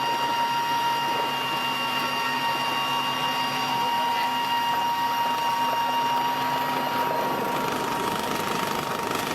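Helicopter running: a steady turbine whine over engine and rotor noise.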